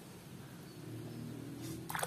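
Mostly quiet, with a faint low hum. Near the end, water suddenly starts splashing as a hand swishes a plastic toy in a tub of water.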